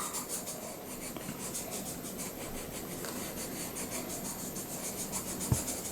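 Colored pencil scratching on paper in quick, even back-and-forth strokes as a square is colored in, with a soft knock near the end.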